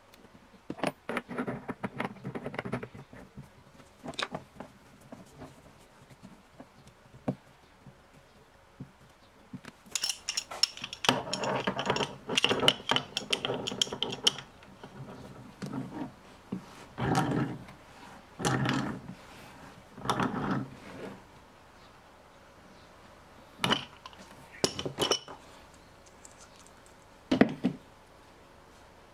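Metal threaded pipe fittings being handled and screwed together by hand on a plastic tank: irregular clinks, taps and scraping, with a longer stretch of ringing metal clinking about halfway through and a few sharp knocks near the end.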